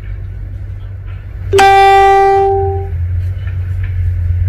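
A single loud horn blast about a second and a half in: one steady pitch, lasting just over a second and then fading away. A steady low rumble runs underneath.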